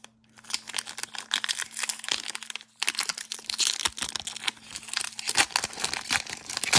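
Foil wrapper of an Upper Deck hockey card pack crinkling as it is handled and opened: a dense run of crackles with a short break about two and a half seconds in.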